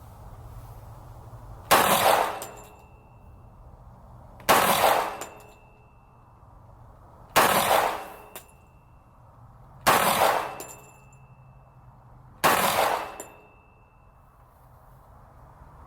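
FN FNX-45 pistol firing .45 ACP, five single shots about two and a half to three seconds apart, each with a reverberating tail and a short metallic ring after most of them.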